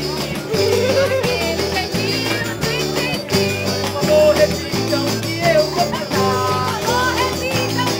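A small live band playing: acoustic guitars, electric bass guitar, drum kit and tambourine, with a man singing over them.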